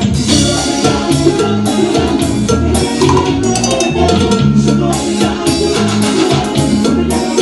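A live band playing Latin dance music, with drum kit and percussion keeping a steady beat under a bass line.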